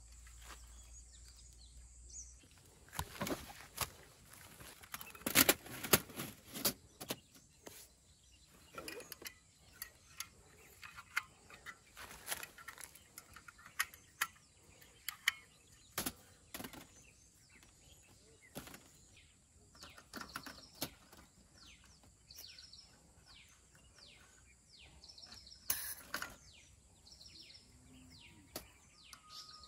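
Birds chirping, with a run of short, quick, high chirps in the second half, over scattered sharp clicks and knocks, the loudest about five to six seconds in.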